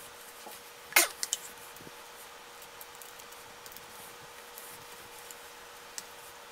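Handling clicks from a Ruger 10/22 rifle as its stock is taken off: one sharp click about a second in, two lighter ticks right after, and another small click near the end.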